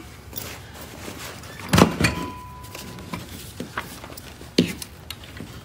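Handling knocks as a metal Clarke floor edger is tipped over onto a wood floor: a few sharp clunks, the loudest about two seconds in and another a little before the end, with a short thin tone just after the first.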